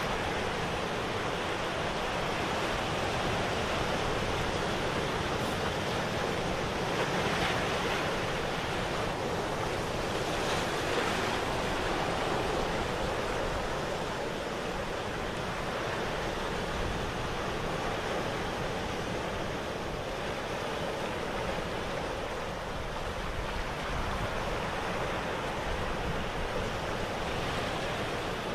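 Steady rushing noise like ocean surf, swelling slightly now and then.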